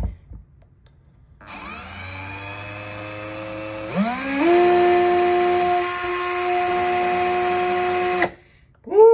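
Hercules 12V compact cordless screwdriver running with no load. The motor and gearbox whine at a low speed, rise to a higher, louder pitch about four seconds in, then stop abruptly near the end.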